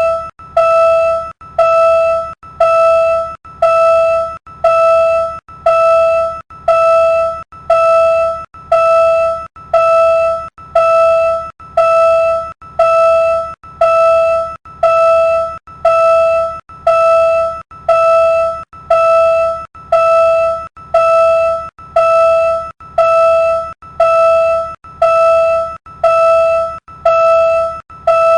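Railroad crossing warning bell ringing steadily, one ding a little more than once a second, each stroke striking sharply and then fading.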